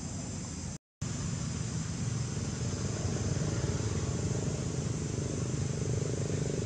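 Steady outdoor background noise: a low rumble with a thin high drone over it, broken by a brief gap of silence about a second in.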